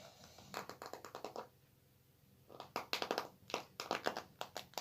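Close handling noise of small plastic slime jars: quick clicks and crackles in a short cluster about a second in, then a denser run from about halfway on.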